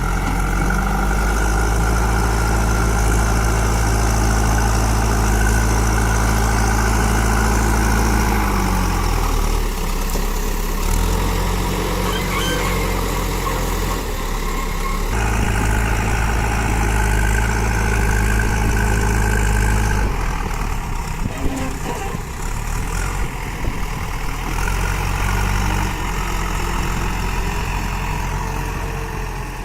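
JCB backhoe loader's diesel engine working, its revs stepping up and holding for several seconds, then dropping back, over and over as the machine pushes soil.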